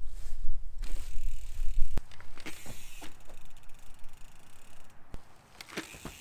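Bicycle riding on a trail: wind rumbles on the microphone for the first two seconds, then the rear hub's freewheel ratchets with scattered clicks and squeaks as the bike coasts.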